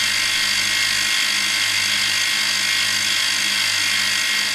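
Small benchtop milling machine running steadily, its spindle turning a 5 mm carbide chamfering tool that is cutting graduation lines into a knurled micrometer nut: a steady high-pitched whine over a low hum.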